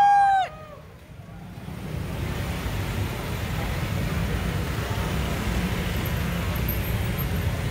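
A high whoop cuts off about half a second in. Then the steady traffic noise of cars and motorbikes passing on a city street builds over the next second or two and holds.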